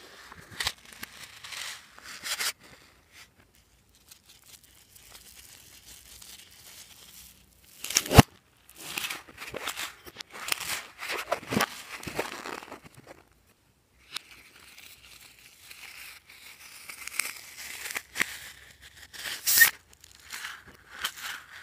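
Hands squeezing and stretching slime-filled rubber balloons, giving rubbing and stretching rubber noises in irregular spells. There is a sharp snap about eight seconds in, and near the end scissors cut into a balloon's rubber.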